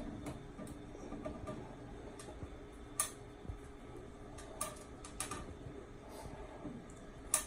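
Scattered light clicks and knocks of plastic and metal parts as a washer drain pump assembly is pushed and shifted into its mounting, a few separate taps spread over several seconds.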